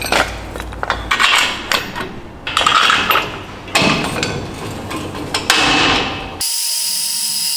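Steel clanking and knocking as a box spanner and steel support leg are worked against a steel deck frame, in irregular clusters of hits and rattles. About six and a half seconds in it cuts abruptly to a steady hiss with a thin high whine.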